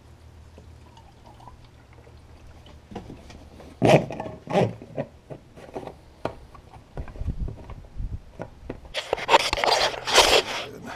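Knocks, scrapes and a little liquid sound as a fuel can's plastic spout is pulled out of the filler neck of a plastic fuel tank, the two sharpest knocks about four seconds in. A dense burst of rustling handling noise near the end.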